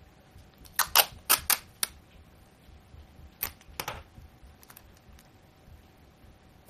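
Sharp plastic clacks of a small tape dispenser being handled and set down on a wooden table: a quick run of about five around a second in, then three more near the middle.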